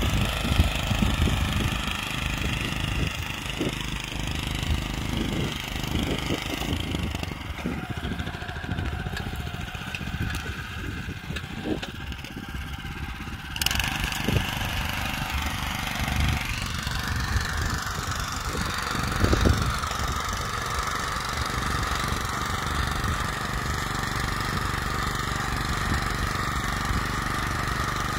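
Honda FJ500 power weeder's small petrol engine running steadily under load as its rotary tines churn dry soil, with scattered knocks from the tines. The engine eases off for several seconds and picks up abruptly about halfway through.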